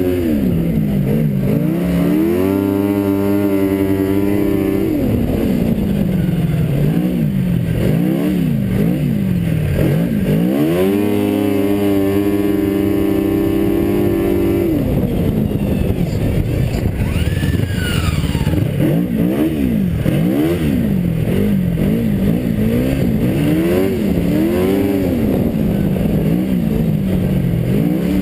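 Yamaha four-stroke snowmobile engine heard from on board, revving up and down as the throttle is worked. It is held at high revs for a few seconds twice, once about two seconds in and again from about ten seconds in, and otherwise rises and falls in quick pulls.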